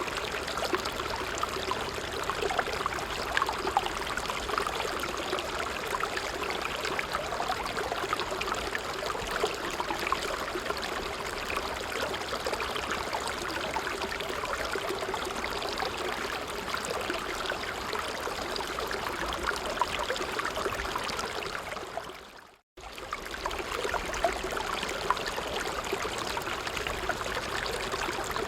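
A small stream running over stones: steady babbling and trickling water. About 22 seconds in, the sound fades out for a moment and then returns.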